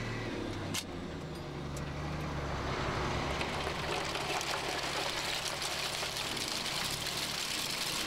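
Dump truck engine running steadily while the bed is hoisted, with a single click about a second in. From about three seconds in a broad rushing noise builds as the bed tips and its load of oyster shells begins to slide.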